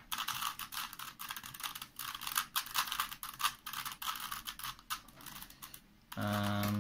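Rubik's Cube being turned quickly, its plastic layers giving a rapid run of clicks and clacks while a corner-swapping algorithm is done. Near the end the clicking stops and a short, steady hum of a voice comes in.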